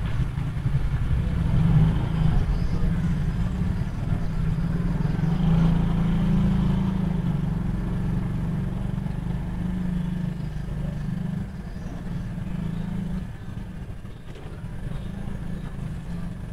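Wind buffeting the microphone: a low, uneven rumble that eases somewhat near the end.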